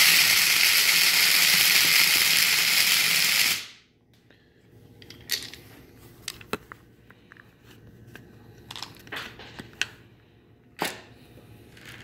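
Electric blade coffee grinder running on whole grain-corn kernels, a loud steady grinding that cuts off a little under four seconds in. The hard kernels come out barely broken. Light clicks and taps follow, with one sharper knock near the end.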